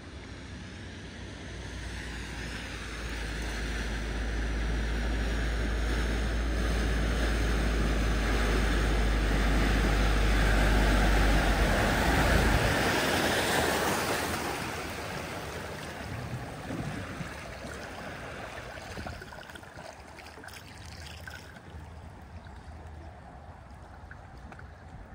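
A BMW hatchback pushing through deep floodwater: a rush of surging, splashing water that builds over several seconds, is loudest about halfway through, then dies away as the car slows to a stop. A low rumble runs under the rush and cuts off suddenly about halfway through.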